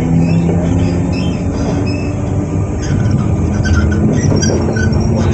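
Z2N double-deck electric multiple unit (motor car Z 20783) standing at the platform, its onboard electrical equipment running with a loud steady hum and rumble. Short high squeaks join in from about three seconds in.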